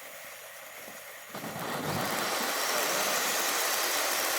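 Phantom Fireworks Oil Lamp fountain burning with a fainter hiss, then about a second and a half in a much louder, steady rushing hiss of spraying sparks starts and holds: the fountain's silver spray finale.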